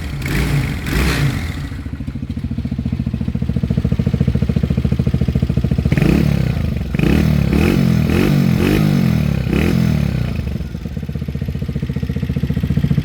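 Motorcycle engine idling with a pulsing beat. It is revved in a couple of short throttle blips at the start, then in a run of about six quick blips in the middle, and settles back to idle.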